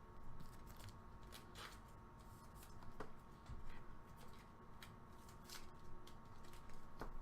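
Faint scattered clicks and rustles of baseball trading cards being handled and set down one by one.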